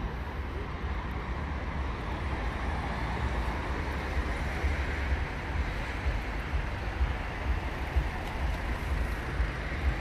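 City street traffic: a steady wash of cars going past, with a low rumble and one or two vehicles swelling louder and fading.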